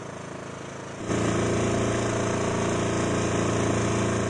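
Small outboard motor pushing a trimaran sailboat in calm water, running at a steady speed and getting louder about a second in.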